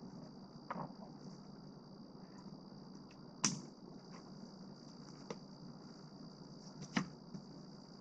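Steady high insect trilling, typical of crickets, with four sharp knocks, the loudest about three and a half seconds in and another near seven seconds.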